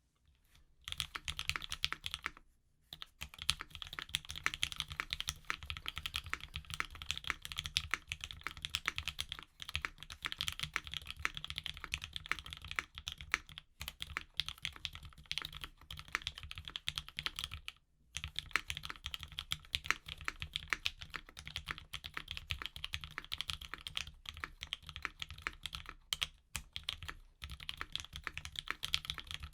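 Fast continuous typing on a Keycult No. 1/65 mechanical keyboard with lubed Alpaca linear switches, a half polycarbonate plate and doubleshot ABS keycaps: a dense run of key clacks with short pauses a few times.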